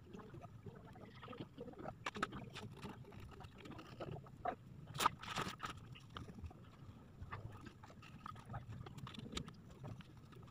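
Pencil scratching on paper with scattered soft taps and knocks against the table; one sharper click about five seconds in.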